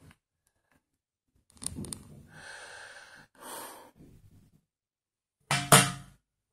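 A man's breathing and mouth sounds: audible breaths, like sighs, about two and three and a half seconds in, then a short loud vocal sound near the end.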